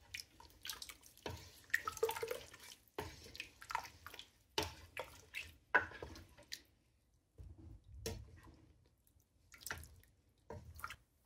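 Soft, irregular wet splats and clicks from thick, just-cooked mutton and chana dal curry in the pot.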